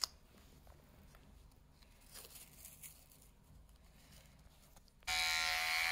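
Electric pet hair clippers switch on about five seconds in and run with a steady buzzing whine. Before that, a single click, then faint rustling and tearing of adhesive tape as an IV catheter on a dog's leg is taped down.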